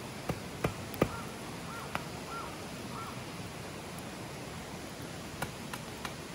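Wood campfire crackling, with a few sharp pops (the loudest about a second in) over a steady hiss. A bird gives a run of about five short calls during the first few seconds.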